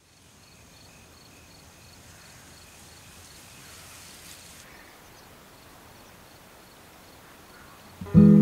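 Quiet open-field ambience: a faint steady hiss with insects chirping in a regular rhythm, about two chirps a second. Near the end, acoustic guitar music starts abruptly and much louder.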